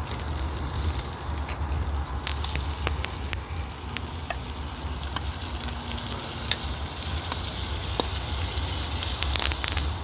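Wood fire burning in a small metal camp stove, crackling with scattered sharp pops, under a pot of food sizzling as it fries.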